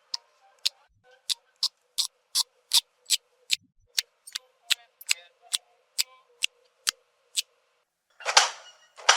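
A steady run of sharp clicks, about two to three a second. About eight seconds in they stop and a short breathy hiss follows.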